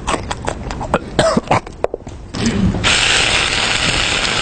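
Sharp crackling and clicks of loud snack eating and crinkling packaging for about two seconds. Then, near three seconds in, a loud, steady hiss starts suddenly and keeps going.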